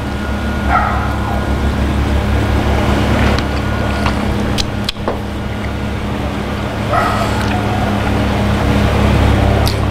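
Steady low machine hum, with two short high-pitched yelps, one about a second in and one about seven seconds in, and a few light clicks.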